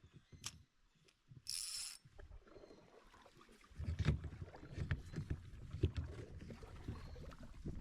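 Canoe on open water: paddle and water sounds around the hull, with a short hiss about one and a half seconds in, then wind buffeting the microphone from about four seconds in.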